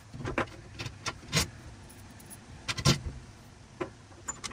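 Steel bolts and washers clinking and tapping as they are handled and set into bolt holes in the plastic top of a Decked drawer system. Several separate sharp clicks come at uneven times, the loudest about three seconds in.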